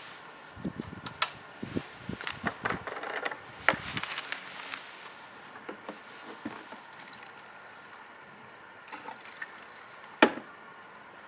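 Scattered light clicks and knocks of handling, busiest in the first few seconds and then sparse, with one sharp, loud click near the end. No engine is running.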